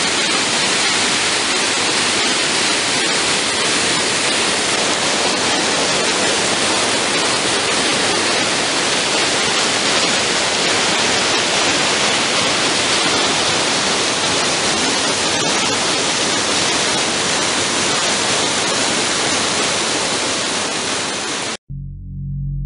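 Steady roar of a waterfall, a dense, even rush of falling water. It cuts off suddenly near the end, and guitar music starts.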